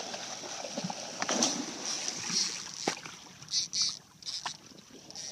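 Seawater splashing and sloshing alongside a boat as a hammerhead shark thrashes at the surface feeding on bait, with a few sharp knocks.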